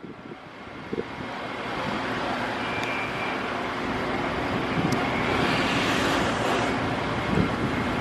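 Steady rumble of a distant engine, swelling over the first couple of seconds and then holding, with wind on the microphone.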